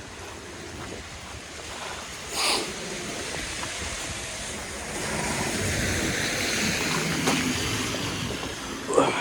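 Steady rushing noise of wind and snow travel in a snowstorm, growing louder in the second half, with a brief swish about two and a half seconds in and a sharp knock near the end.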